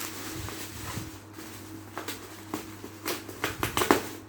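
Parcel contents being handled and unpacked: scattered clicks and rustles of packaging and small boxes, busier about three seconds in, over a faint steady hum.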